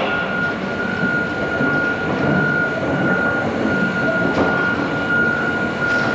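John Deere 350G excavator running, a steady machine rumble with a high tone that swells and fades about once a second.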